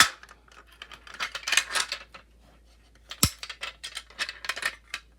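Clicks and rattles from an Edwards manual fire alarm pull station being handled and its handle worked: one sharp click at the start and another about three seconds in, with clusters of small clicks between.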